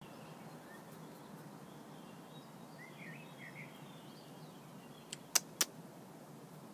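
Steady faint outdoor background hum, with a few faint short bird chirps about three seconds in. Just after five seconds in come three sharp clicks in quick succession, the loudest sounds.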